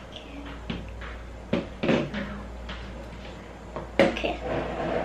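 Plastic clicks and knocks as a clear plastic slime jar with a green lid is handled and tipped out onto a tabletop. The sharpest knock comes about four seconds in, followed by a short rustle.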